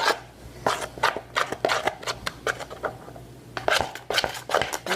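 A utensil stirring foamy shaving-cream slime in a bowl, with irregular clicks and scrapes against the bowl and a short pause near the middle.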